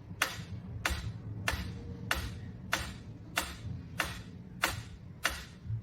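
Steady, evenly spaced ticking, about three ticks every two seconds, each tick sharp with a short fading tail.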